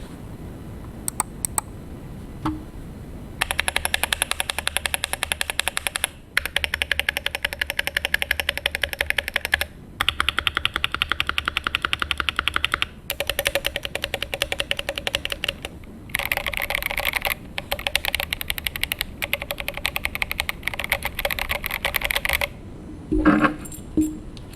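Fast typing on a GMMK Pro mechanical keyboard with Boba U4T tactile switches and Drop MT3 keycaps: long runs of rapid keystrokes broken by short pauses, then a few louder single key strikes near the end.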